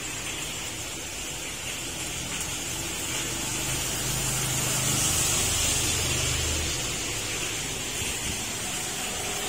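Heavy rain pouring down in a steady hiss, with a low rumble that swells for a few seconds in the middle.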